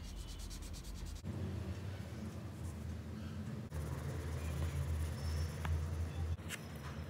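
Felt-tip pens scratching on paper: a yellow marker colouring in, then a black pen shading in dense strokes. The sound changes abruptly about a second in and again near four seconds, as the recording is cut together.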